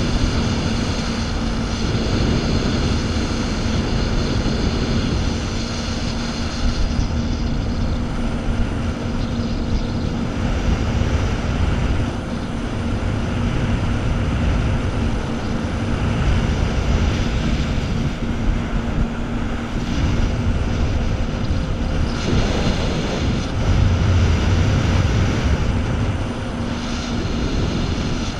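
Jet ski engine running steadily at speed, a constant droning hum over the rush of water churned up in its wake.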